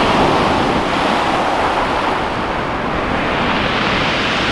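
Surf breaking and washing up over a shingle beach: a steady, loud rush of waves.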